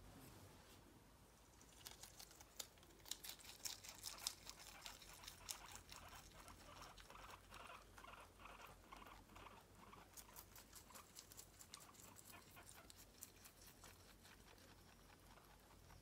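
Faint pattering and light clicking of a small pet's claws on a hard floor, many quick taps in an uneven rhythm that thin out after about ten seconds.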